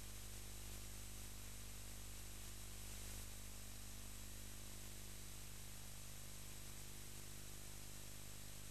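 Steady hiss with a low, even hum underneath and nothing else: the background noise of the recording.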